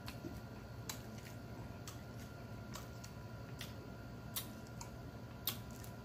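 Close-miked chewing with the mouth closed: faint, sharp wet clicks and lip smacks at an uneven pace, roughly one a second, over a low steady hum.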